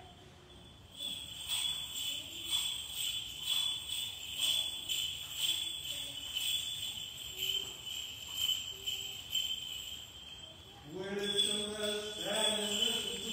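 Small bells on a swinging censer jingling in a steady rhythm, roughly once a second. Near the end a man's voice begins chanting.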